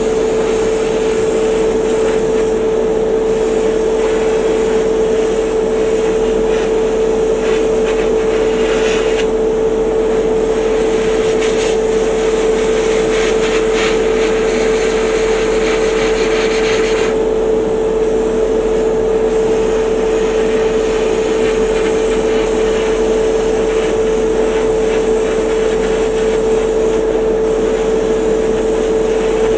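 A small electric motor running steadily with a constant hum, under a hiss whose higher part drops away and comes back several times.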